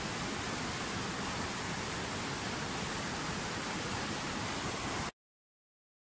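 Rushing river water, a steady, even roar of whitewater over rocks, which cuts off abruptly about five seconds in.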